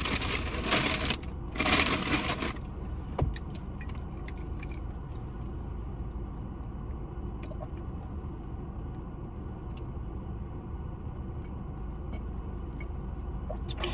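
Rustling, crinkling handling noise for about the first two and a half seconds, then a low steady rumble with faint scattered clicks.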